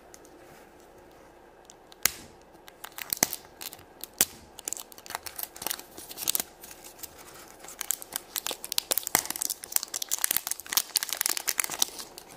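Printed foil wrapper of a chocolate surprise egg being peeled and torn off by hand, crinkling and crackling. A few sharp crackles at first, then a dense run of crinkling over the last few seconds.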